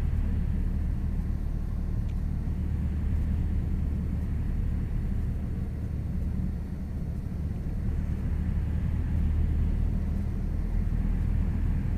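Cessna 172 engine and propeller throttled back to idle for a simulated engine failure, with airflow noise, a steady low drone heard inside the cockpit. It dips slightly about halfway through.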